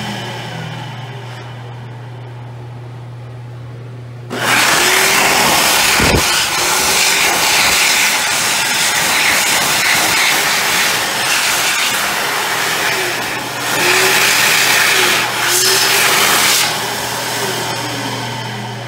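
American Dryer eXtremeAir GXT high-speed hand dryer. At first its motor is still spinning down with a falling pitch, over a low steady hum. About four seconds in it switches on abruptly with hands under the sensor and blows loudly for about twelve seconds, its note wavering and the loudness dipping briefly twice. It then cuts out and spins down with a falling whine.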